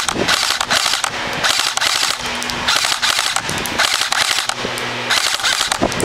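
KWA M4 electric airsoft rifle (AEG) firing on full automatic in several short bursts, each a fast rattle of gearbox cycles and shots lasting well under a second.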